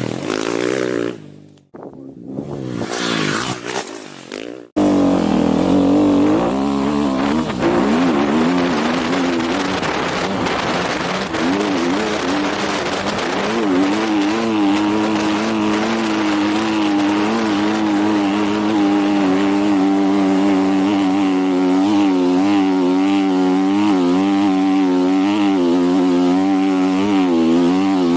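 Dirt bike engines revving in short bursts, then, after a cut about five seconds in, one dirt bike's engine running close up from the rider's helmet camera as it rides down a sandy hill, its pitch rising and falling with the throttle.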